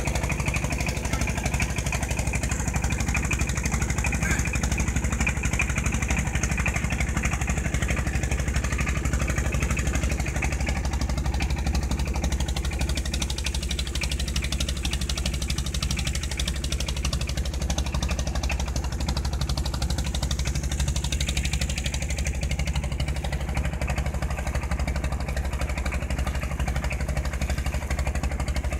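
Engine of a small wooden boat running steadily as the boat travels under way.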